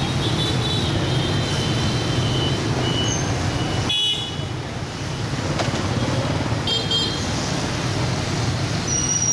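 Dense street traffic of motorbikes and scooters, engines running steadily, with short high horn beeps several times in the first three seconds and again about seven seconds in.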